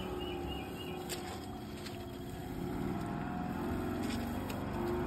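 A steady engine rumble, and a small bird chirping a few times in the first second.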